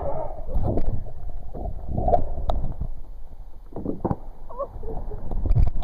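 Water sloshing and splashing around a kayak's hull as it is paddled and turned, with uneven splashes and a few short knocks.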